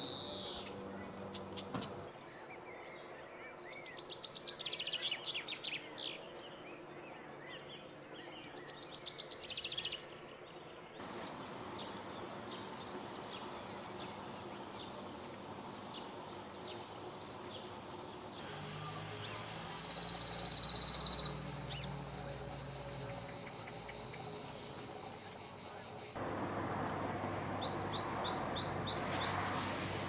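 A run of songbirds singing one after another. A chaffinch sings two descending song phrases, then a European serin sings two bursts of its high jingling song. A cirl bunting sings a long, even rattling trill, and near the end a great tit sings a short series of repeated two-note phrases.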